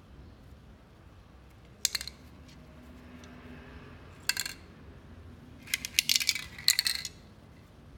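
Rubber paint aerosol can's metal mixing ball clattering inside as the can is tipped and turned in hand. There is a short rattle about two seconds in, another just after four seconds, and a longer run of rapid rattling near the end.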